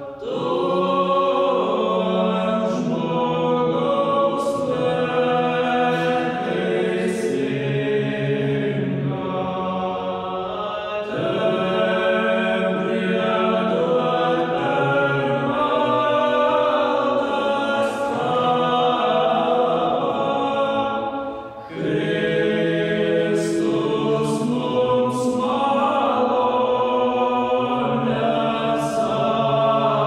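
Small mixed choir of women's and men's voices singing a cappella, holding sustained chords in several parts, with a brief break between phrases about two-thirds of the way through.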